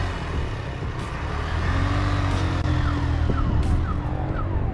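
A vehicle engine running steadily under a heavy low rumble, with a few short falling chirps in the second half.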